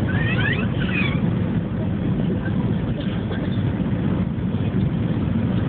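Steady drone of an airliner cabin in flight, engine and airflow noise, with a baby's short high squeals in the first second or so and a few fainter ones later.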